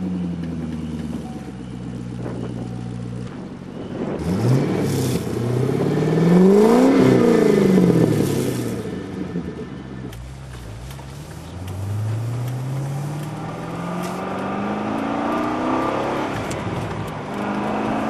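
2007 Corvette C6's V8 running through Magnaflow 14335 mufflers, heard from behind the car: it idles, is revved once to a peak about seven seconds in and drops back, then climbs slowly again from about eleven seconds in.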